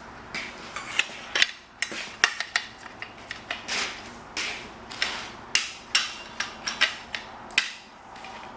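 A silicone caulking gun being handled and readied: irregular sharp metal and plastic clicks and clatters, about two a second.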